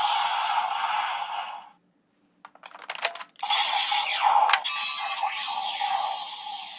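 Electronic sound effects played by a Kamen Rider toy, cutting off after about two seconds. A quick run of plastic clicks follows, then a second effect starts with a sharp click and fades out near the end.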